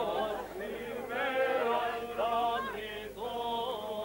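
Male voices chanting a Greek Orthodox Easter hymn in long held notes, with a steady drone note sustained beneath the moving melody.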